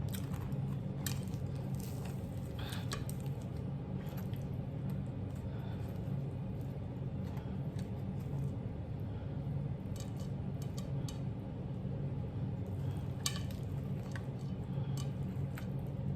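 Scattered soft clicks and clinks of a plate and of food being picked up and eaten by hand, over a steady low hum.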